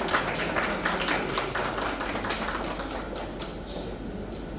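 Audience applauding: a clatter of many hand claps that thins out and fades near the end.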